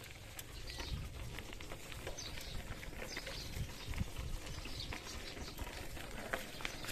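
Bicycle being ridden: wind rumbling on the microphone, with scattered light clicks and rattles from the bike.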